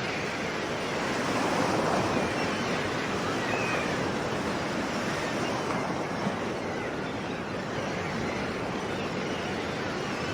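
Sea waves washing onto a shore in a steady rush of surf, swelling louder about a second or two in, then settling.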